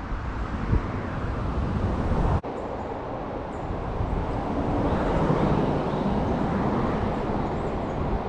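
A road vehicle passing by, its tyre and engine noise swelling to a peak about halfway through and then fading.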